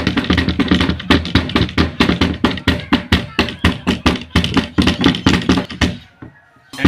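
Children drumming with their hands or sticks on an improvised surface: quick, uneven taps, several a second, breaking off for a moment about six seconds in before starting again.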